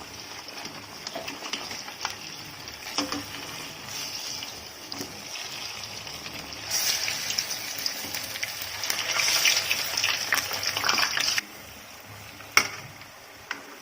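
Batter-coated banana balls deep-frying in hot oil, a steady sizzle. It grows louder for about five seconds midway, then drops suddenly. There is one sharp click near the end.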